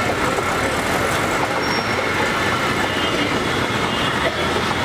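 Steady street noise of traffic with faint voices in the background.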